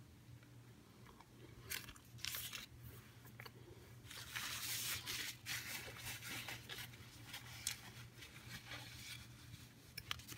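Crumpled paper sandwich wrapper crinkling and rustling in short bursts as a half-eaten burger is set down on it, densest a few seconds in. A low steady hum runs underneath.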